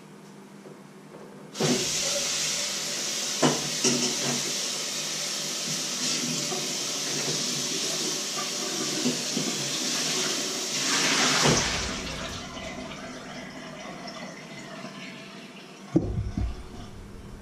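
Kitchen tap running water into a stainless steel bowl for about ten seconds, starting a couple of seconds in, with a few knocks of the bowl; then the water stops. Near the end the bowl is set down on a wooden chopping board with a single thump.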